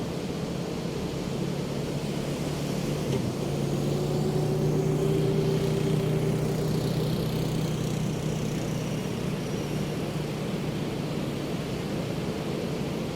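Ocean surf washing steadily, with the drone of a passing engine that builds from about three seconds in, is loudest in the middle, and slowly fades.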